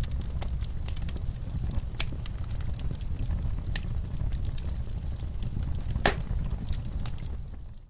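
Wood fire in a fireplace crackling, with a steady low rumble of the flames and irregular sharp pops, the loudest about two and six seconds in. The sound fades out abruptly at the very end.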